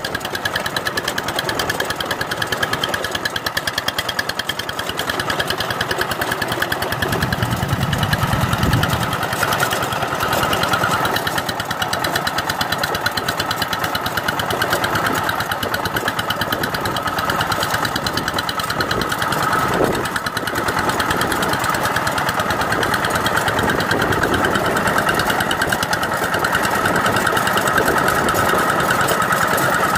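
Two-wheel walking tractor's single-cylinder diesel engine running steadily with a rapid chug while it pulls a rotary tiller through wet paddy mud. A deeper rumble comes in for a couple of seconds after about seven seconds.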